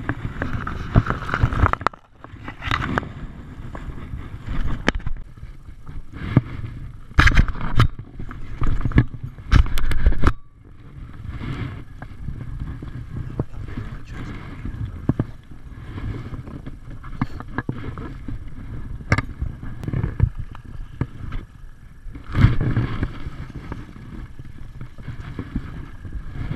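Stream water splashing around hands and a golden rainbow trout as the fish is let go, then a steady wind rumble on the microphone with loud bumps and rubbing of clothing and gear against a body-worn action camera, heaviest in bursts about a third of the way in and again near the end.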